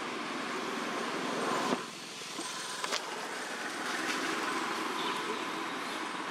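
Steady outdoor background noise, an even hiss-like hum. It drops briefly about two seconds in and has a couple of faint clicks near three seconds.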